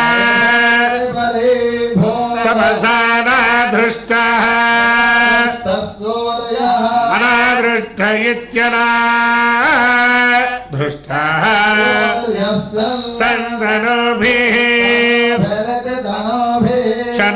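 Male Vedic chanting in Sanskrit, held mostly on one steady pitch with short rises and falls between syllables.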